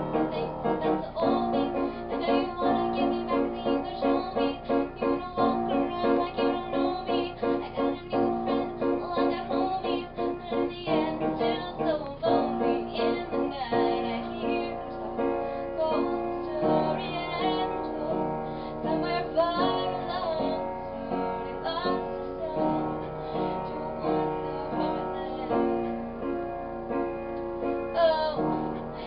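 Music: piano with a singing voice.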